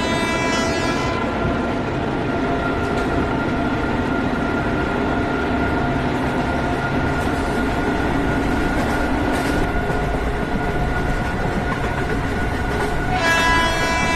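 Cab of a running WAP-7 electric locomotive: a steady rumble with a steady whine. The locomotive horn sounds at the start, stops about a second in, and sounds again near the end.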